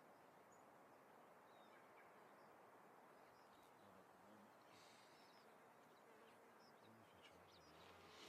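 Near silence: faint outdoor ambience with a few faint chirps, and a faint low call near the end from a distant red stag roaring.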